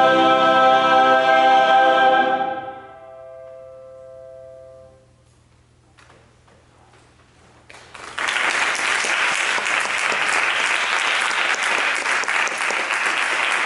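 A mixed choir with piano holds a final chord, which is cut off about two seconds in and dies away. After a few seconds of quiet, audience applause starts about eight seconds in and keeps going.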